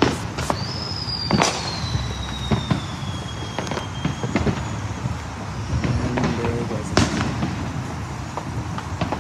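Fireworks going off in a repeated string of sharp bangs, the loudest at the start and about seven seconds in. A whistling firework starts about half a second in and holds a high tone that slowly falls for about three and a half seconds.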